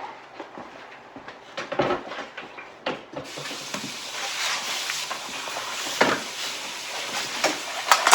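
Scattered light knocks and taps, then a steady hiss from about three seconds in with a few more knocks over it.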